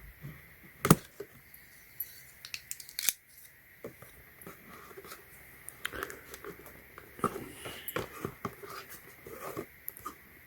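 Tape on a toy's retail box being cut open and the packaging handled: an irregular run of sharp clicks, snips and crinkles, the loudest click about a second in.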